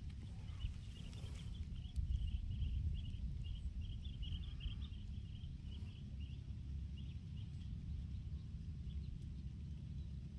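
Outdoor field ambience: a steady low rumble of wind on the microphone, with faint, rapid high chirping that runs through most of the first seven seconds and then fades out.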